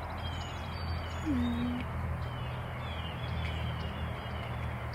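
Birds chirping at dawn, short falling notes repeated every half second or so, over a steady low rumble of distant truck traffic. A single short low call sounds about a second and a half in.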